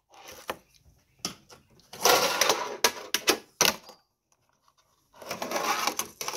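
A fingerboard rolling and rattling across a grip-taped ramp, with sharp clacks as its deck and trucks strike the ramp during tricks. The rolling stops for about a second around four seconds in, then starts again.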